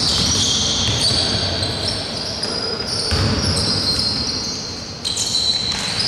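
Basketball game sounds on an indoor hardwood court: high-pitched sneaker squeaks and a ball bouncing, echoing in the gym hall.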